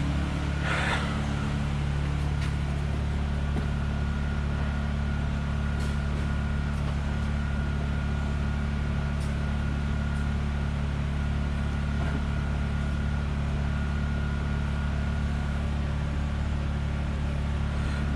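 Steady low mechanical hum, like a running engine or motor, with a faint steady high whine above it and no change in pitch or level.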